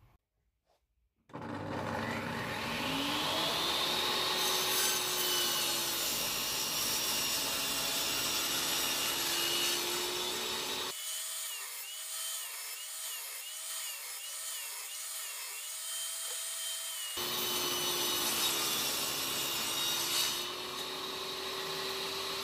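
Table saw starting up about a second in, its motor tone rising and then holding steady as it cuts plywood; in the middle its tone wavers up and down several times.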